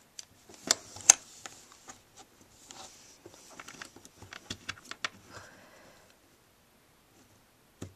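Close handling noise from hands working a paracord bracelet and its plastic buckle: two sharp clicks about a second in, then lighter clicks and rustling that die away around two seconds before the end.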